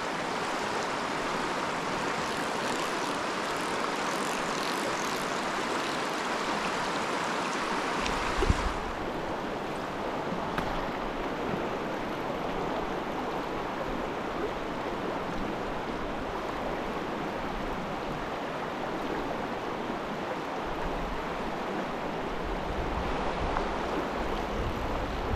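Rocky river rushing over shallow rapids, a steady hiss of running water. Just under nine seconds in it turns duller, and a low wind rumble on the microphone comes and goes.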